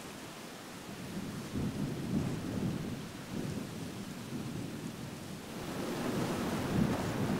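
Wind gusting across the microphone: an uneven low rumble of buffeting that comes in puffs and grows stronger over the last couple of seconds.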